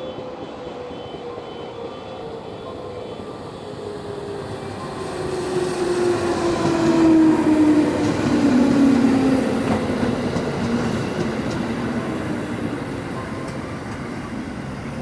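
JR West 213 series electric train pulling into the platform and slowing. Its motor whine falls steadily in pitch as it brakes, growing louder as the cars roll close past, then easing off.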